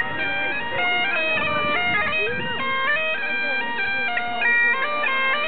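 Great Highland bagpipe playing a tune: the chanter melody steps between notes with quick grace-note flicks over the steady drones.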